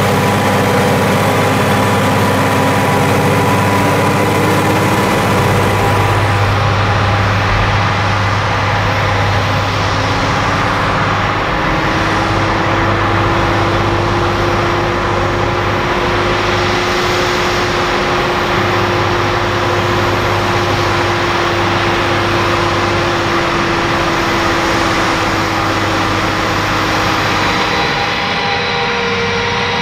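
Massey Ferguson 7718 S tractor's six-cylinder AGCO Power diesel running steadily under load while it drives an Amazone KE403 rotary power harrow through the soil, with a steady whine over the engine sound.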